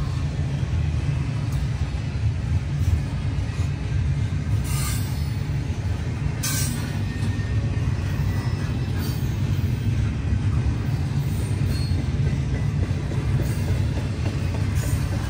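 CN freight train rolling past with a steady low rumble of wheels on rail. Two brief sharper high-pitched noises come through, about five and six and a half seconds in.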